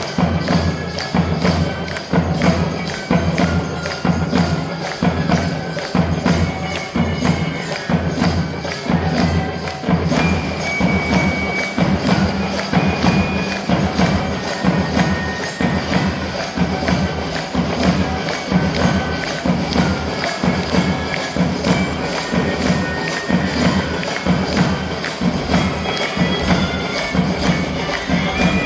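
School drum band performing: fast, steady drumbeats with jingling percussion, and a high melody of short held notes over them.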